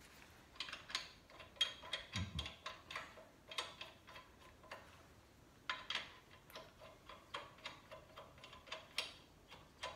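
Lug nuts being spun on by hand onto the wheel studs of a 2008 Dodge Ram: light, irregular metallic clicks and ticks as the nuts turn on the threads and seat against the wheel.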